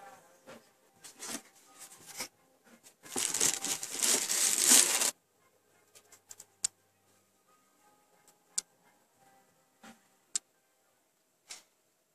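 Handling noise: scattered light clicks, then a loud rustling, crinkling burst about three seconds in that lasts about two seconds and cuts off suddenly, followed by a few sparse ticks.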